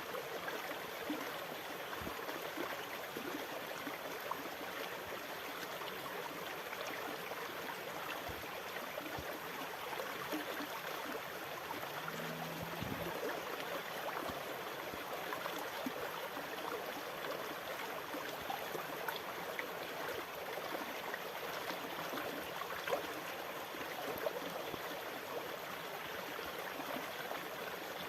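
Water running steadily, with constant small trickles and splashes and no rise and fall of breaking waves.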